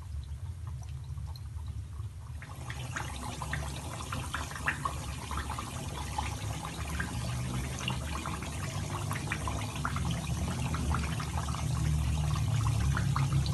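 Breadcrumb-coated glutinous rice croquettes deep-frying in hot oil in a pan: a dense sizzle of fine crackles and pops that sets in about two seconds in, over a steady low hum.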